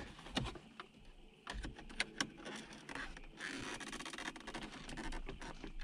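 Plastic dash trim panel of a LandCruiser 70 series being pried loose: scattered sharp clicks and plastic scraping as its tight retaining clips are worked free.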